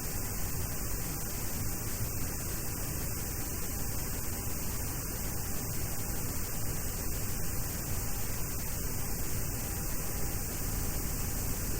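Steady static hiss with a low hum on an aircraft interphone/headset audio line, with no distinct events.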